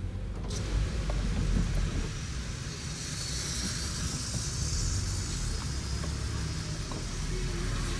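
Car driving on wet city streets, heard from inside the cabin: a steady low engine and road rumble, with tyre hiss on the wet pavement swelling for a few seconds in the middle.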